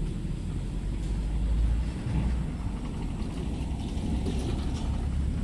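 A steady low rumble, swelling a little about a third of the way in.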